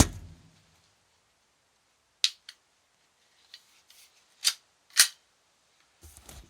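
Glock 19X CO2 BB air pistol, giving sharp pops and clicks: a loud pop right at the start and another about five seconds in, with lighter clicks between, about two seconds in and shortly before the second pop.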